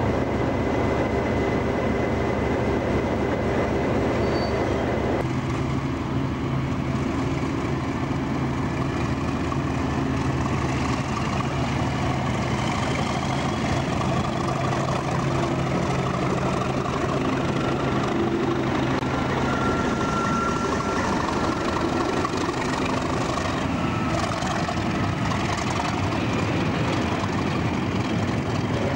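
Diesel train engines. First a first-generation Class 101 diesel multiple unit idling steadily. Then, after an abrupt change about five seconds in, a Class 37 locomotive's English Electric V12 diesel runs as it brings in its train of coaches, with a faint rising whistle, until the engine drone gives way to the coaches rolling past.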